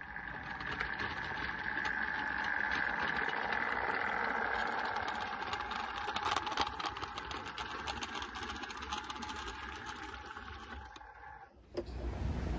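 Model railway train running past: a steady whine from its small electric motor with rapid clicking of wheels on the track, fading away over the last few seconds. Near the end a low rumbling noise cuts in suddenly.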